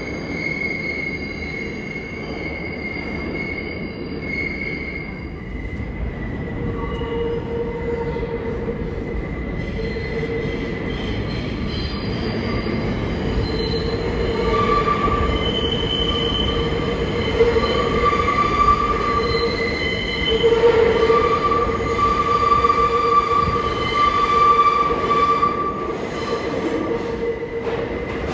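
New York City subway train moving through the station, its wheels squealing in several held tones over a steady rumble that grows louder through the middle.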